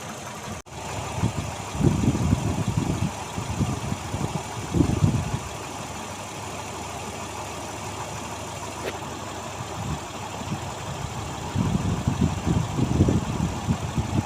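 Car engine idling, with uneven swells of low rumble a few times: about a second in, around five seconds in, and again near the end. The engine is being recorded to show whether it knocks.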